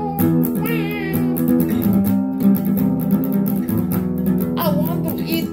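Guitar strummed in a steady rhythm, an instrumental break between the sung lines of a song.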